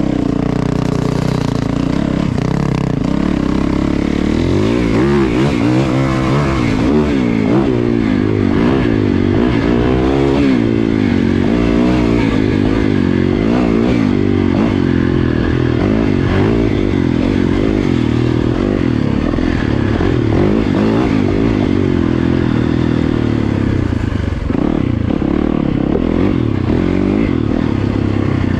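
Yamaha dirt bike engine being ridden, its pitch rising and falling again and again with the throttle and gear changes.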